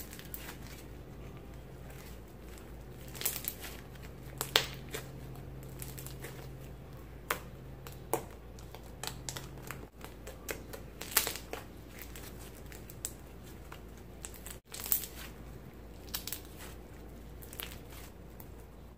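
Dried crust of iceberg slime crackling and crunching as hands squeeze and break it: many short, irregular crackles, some sharper and louder, over a faint steady low hum.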